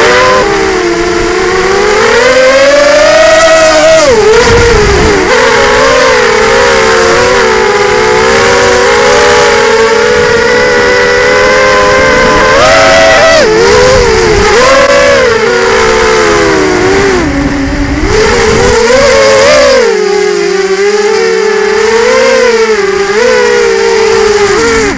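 Racing quadcopter's DYS 1806 2300KV brushless motors spinning 5030 props on a 3S battery, heard through the onboard camera. It is a loud whine of several tones that rises and falls in pitch as the throttle changes.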